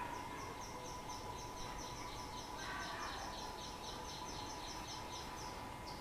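A rapid run of short, high-pitched chirps, about four or five a second, that stops shortly before the end, over a faint steady tone.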